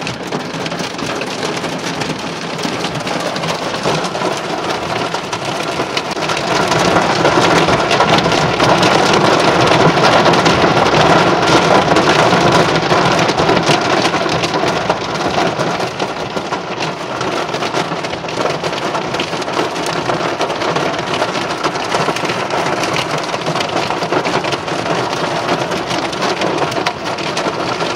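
Hail and heavy rain drumming on a car's roof and windscreen, heard from inside the car as a dense, steady patter of hits. It swells louder about seven seconds in and eases somewhat after about fifteen seconds.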